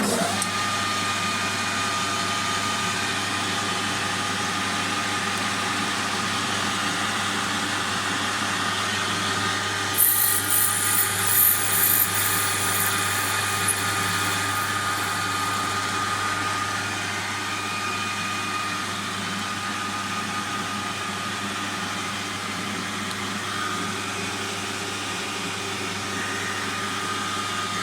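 Metal lathe running with its battery-powered automatic carriage feed, a steady machine hum with several fixed tones that starts abruptly. About ten seconds in, a harsher, uneven high-pitched rasping rises over it for a few seconds.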